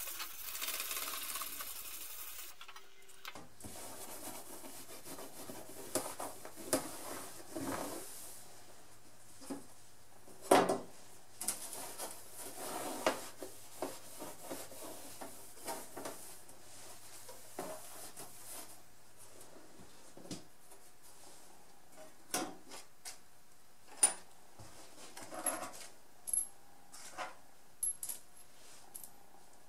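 Hand scrubbing along the oiled steel blade of an 1880s Richardson Bros. rip saw: a steady rasping rub for the first couple of seconds, then scattered rubbing strokes. Sharp knocks and clicks of the saw and tools being handled on the wooden bench break in, the loudest about ten seconds in and again near 24 seconds.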